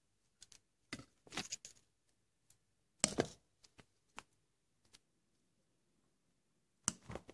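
Scattered sharp clicks and knocks of a plastic dichlorvos aerosol-can cap being pressed against a wall to crush cockroaches. The loudest comes about three seconds in, with a quick cluster near the end.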